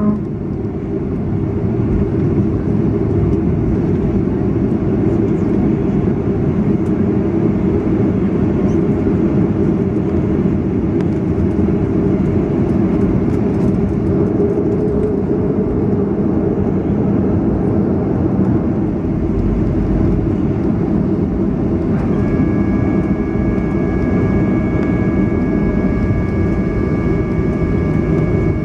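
Cabin noise of a Boeing 737-500 taxiing after landing: its engines run with a steady low rumble, and a steady high whine joins about three-quarters of the way in.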